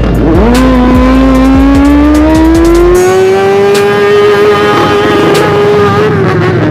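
Motorcycle engine held at high revs, loud. Its pitch jumps up about half a second in, climbs slowly for a few seconds, levels off, then dips slightly near the end.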